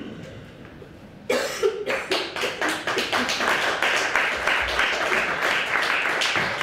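A woman's cough about a second in, then a room of people clapping for several seconds.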